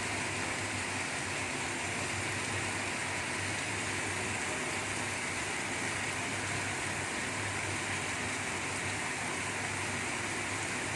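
Noodles frying in a hot pan with sweet soy sauce, a steady even sizzle.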